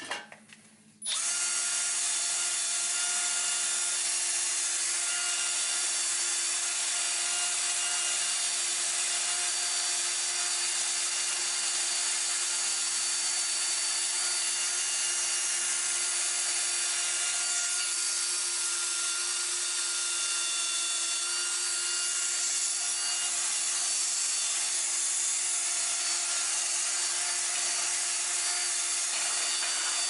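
Handheld power drill spinning a wire wheel brush against the rusty yoke of a driveshaft, scrubbing off rust before a new U-joint goes in. It starts about a second in and runs at a steady speed.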